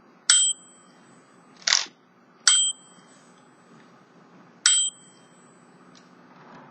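Margin bell of a 1930 Underwood Portable 4-bank typewriter rung three times, about two seconds apart, each a sharp ding with a high ringing tone that fades over a second or more. It rings clearly, though it is not real loud. A short scraping sound comes between the first two rings.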